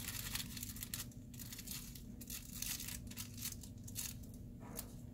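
Glad Press'n Seal plastic wrap crinkling and rustling in many short, irregular crackles as it is handled and pulled away from paper cut-out letters.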